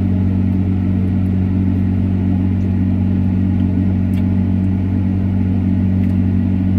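Steady low machine hum that holds at an even level without rising or falling, with a couple of faint clicks about four and six seconds in.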